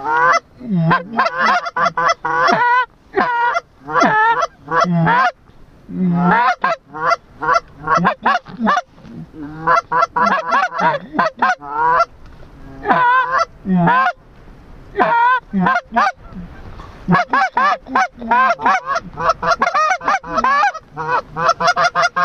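Goose honking and clucking: loud, rapid strings of short honks, in bursts separated by brief pauses.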